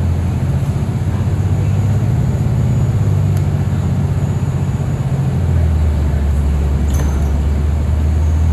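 Inside a moving city bus: the bus's engine and drivetrain hum steadily with road noise, the low drone dropping in pitch about five and a half seconds in. There are a couple of faint clicks.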